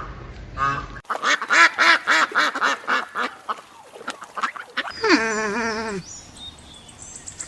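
Ducks quacking in a rapid run of short calls, after a brief tail of chicken clucking in the first second. Near the end comes one longer call that falls in pitch.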